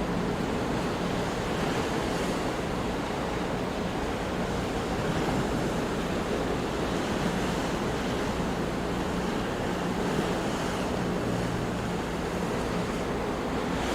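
Ocean waves washing onto a shore, a steady rushing surf with gentle swells in level, with some wind noise.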